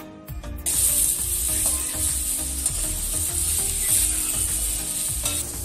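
Sliced onions sizzling in hot oil in a steel kadai and stirred with a metal spatula, with short scraping knocks against the pan. The onions are nearly done, sautéed soft. The sizzle cuts in sharply under a second in, after some music.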